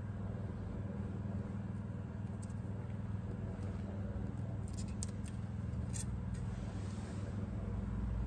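Renault 1.6 dCi four-cylinder turbodiesel idling steadily with the bonnet open, warmed up. There are a few faint clicks around the middle.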